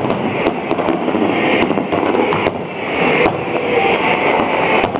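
Fireworks going off: a continuous dense rumble peppered with many sharp cracks.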